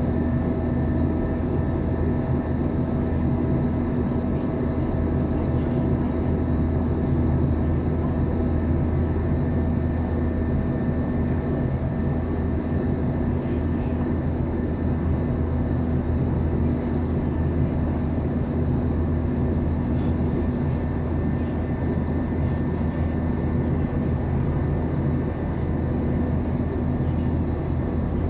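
Cabin noise of an Airbus A321 climbing out: a steady, unbroken drone of jet engines and airflow, with a few constant hum tones running through it.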